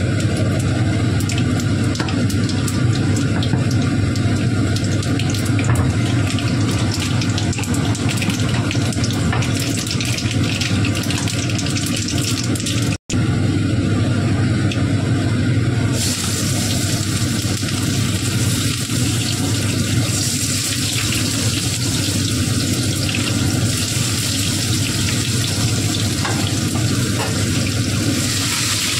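Hot oil sizzling in a wok with spices, with many small crackles and pops over a steady low hum. The sound cuts out for an instant about 13 seconds in, and the hiss gets brighter a few seconds later.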